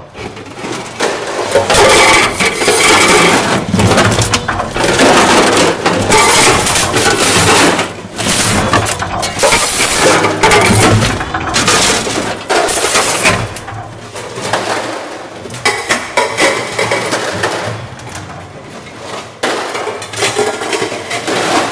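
A WB-Busser can presser crushing empty tin food cans: loud, irregular metallic crunching and clattering in surges of a few seconds. It eases off in the last third, with only scattered crunches.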